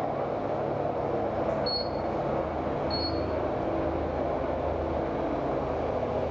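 Two short high beeps about a second apart from an infrared therapy laser, marking each point as it is applied over the jaw muscles, over a steady rushing hum.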